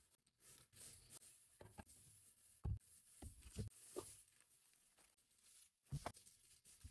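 Faint, scattered thuds and taps of packaged groceries and toiletries being set down on a stone countertop, about half a dozen in all, with light handling of plastic and packaging between them.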